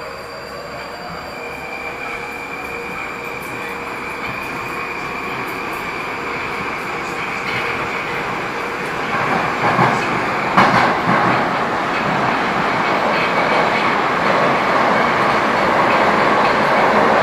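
A Metrowagonmash 81-775/776/777 "Moscow-2020" metro train pulling out of a station and accelerating, heard from inside the car by the doors. A steady high whine runs through the first half, a few knocks over the rails come about ten seconds in, and the running noise grows steadily louder as the train gathers speed.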